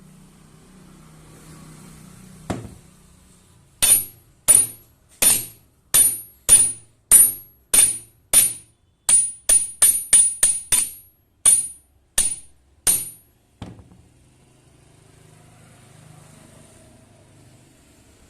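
A metal hammer striking steel about sixteen times, each blow giving a sharp, high metallic ring. The blows come one to two a second, quickening briefly in the middle, after one duller knock before them.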